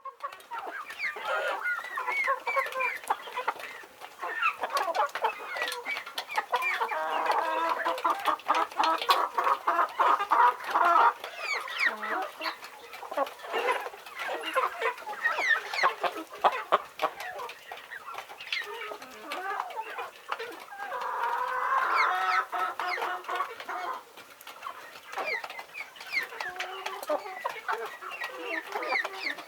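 A flock of chickens clucking and calling over one another, with many short sharp calls and a few longer drawn-out calls.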